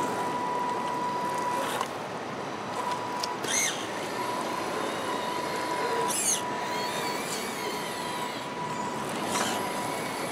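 Small electric motor and gearbox of an Axial SCX10-based RC crawler whining at a steady pitch as it crawls through mud, the whine cutting out briefly a few times as the throttle comes off and back on. Two short high chirps are heard over a steady hiss.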